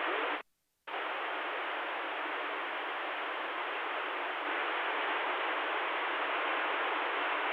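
CB radio static: a steady hiss from the receiver's speaker, with the thin, telephone-like band of radio audio. It cuts out for about half a second near the start, then comes back and runs on evenly.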